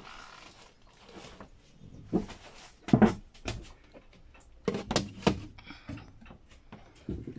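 Irregular knocks and clunks from handling a plastic DampRid moisture-absorber tub and setting it down into a locker, the loudest about three seconds in.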